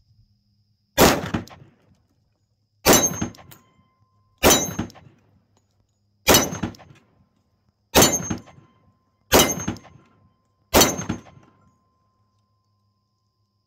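Seven single shots from a Rock Island Armory TAC Ultra 10mm 1911-style pistol firing Fiocchi 10mm ammunition, spaced about one and a half to two seconds apart. Each shot trails off in a short echo.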